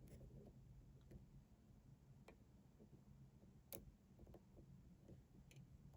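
A handful of faint, sparse clicks, about one a second, from a lock pick and tension tool working the pins of a Yale 5-pin euro cylinder, probing for the spool pin that holds it in a false set.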